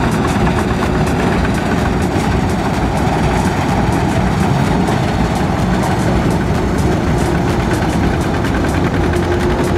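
Diesel engines of a Kubota DC-93 combine harvester and a single-cylinder two-wheel tractor running steadily at close range.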